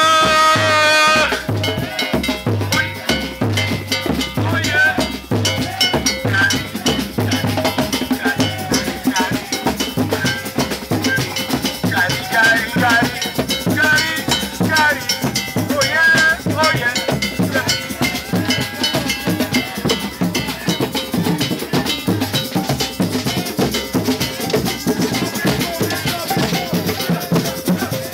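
Music with a steady drumbeat and clanking, cowbell-like percussion.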